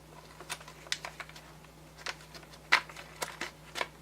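Irregular light clicks and rattles of small trigger-kit parts and their packaging being handled, with one sharper click a little before the three-second mark.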